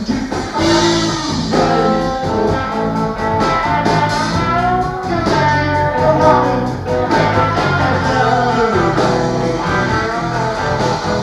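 Guitar-driven rock song with a steady beat and singing.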